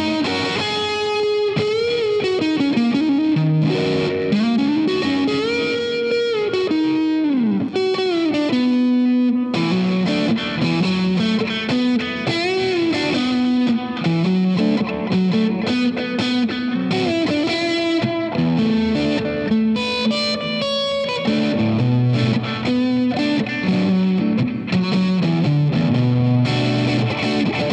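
Squier Affinity Telecaster electric guitar played through a distorted amp: lead phrases with pitch bends in the first part, then faster picked runs and low riffs.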